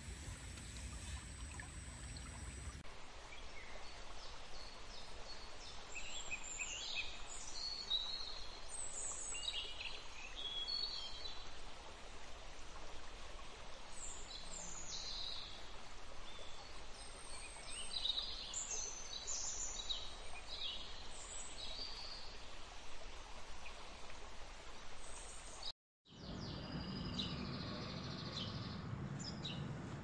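Outdoor ambience: a steady background hiss with many short, high bird chirps and calls scattered through it. The sound drops out for a moment near the end.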